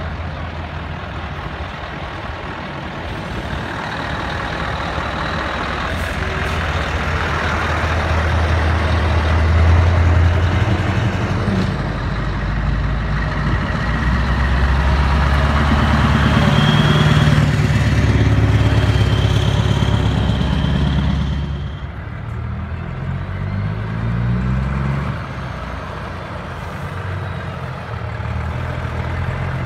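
Heavy Scania trucks' diesel engines running as they drive slowly past close by. The deep engine sound swells twice as trucks pass, loudest about a third of the way in and again past the middle, then drops off suddenly.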